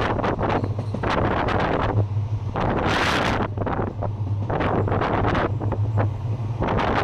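Wind buffeting the microphone in irregular gusts at the window of a moving train, over a steady low hum from the train running.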